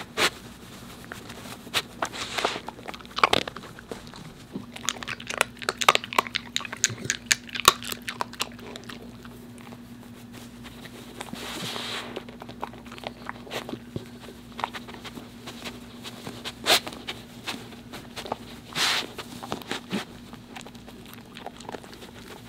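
A corgi foraging in a felt snuffle mat, crunching and chewing the dried treats it finds, with many quick crackles and clicks and a few longer sniffs with its nose in the mat.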